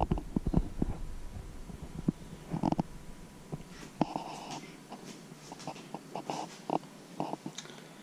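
Close handling noise from a camera being moved on its clamp stand: a quick cluster of knocks and thuds at the start, then scattered clicks, taps and short rustles.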